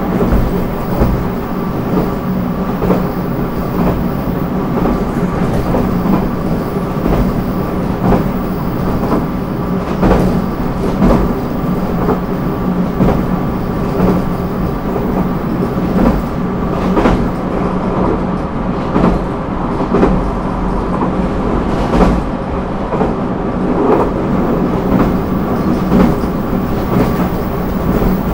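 JR Kyushu 813 series electric multiple unit running at steady speed, heard inside motor car MoHa 813-1003: a steady running drone with the wheels clacking over rail joints roughly once a second.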